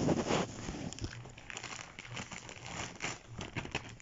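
Packaging crinkling as it is handled, with irregular sharp crackles, loudest at the start.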